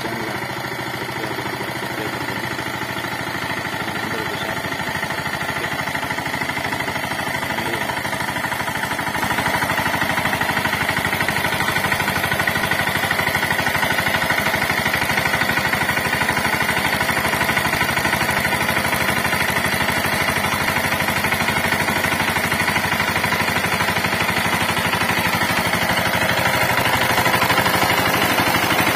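VST Shakti 130 DI power tiller's single-cylinder diesel engine running steadily with a rapid beat while its rotary tiller churns soil. It grows louder about nine seconds in and again near the end.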